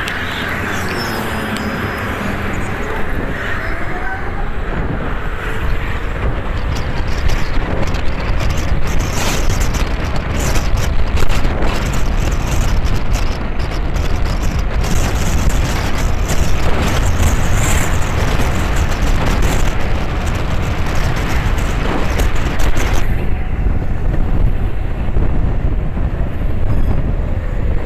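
Steady rush of wind on the microphone with road and tyre noise from a Simple One electric scooter riding at about 55 km/h. The high hiss eases a few seconds before the end.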